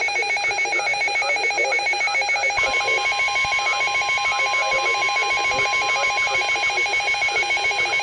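Emergency Alert System two-tone attention signal: two tones sounded together give a steady, harsh buzzing tone, the alarm that announces a coming warning. About two and a half seconds in, a second steady single tone, the NOAA Weather Radio alert tone, joins it.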